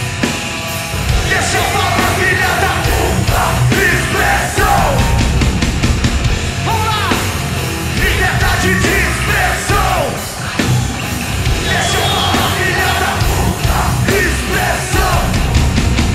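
Loud live punk-hardcore rock band playing: drums, electric bass and distorted guitar, with shouted vocals over the music from about a second in.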